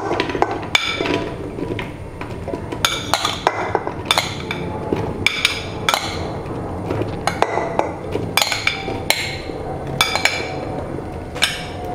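Chunks of raw tender jackfruit tipped from a bowl into an empty pressure cooker, clattering onto the metal pot and each other in an irregular run of sharp knocks with a short ring.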